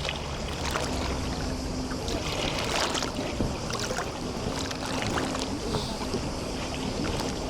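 Small waves lapping at the shore of a sea bay, with many small irregular splashes and trickles, under the faint steady hum of a distant motorboat engine.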